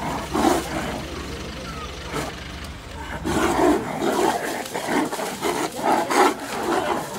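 Two Bengal tigers fighting, snarling and growling in repeated loud bursts that grow louder about three seconds in as they rear up and clash.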